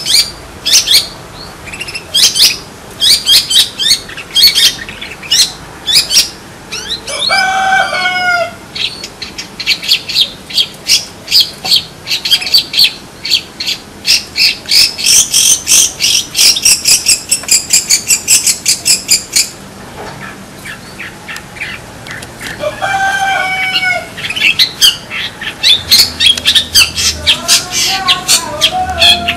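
Long-tailed shrike (cendet) singing: quick runs of sharp, high chattering notes, thickest through the middle. A few harsher calls that slide down in pitch come about a quarter of the way in and twice more near the end.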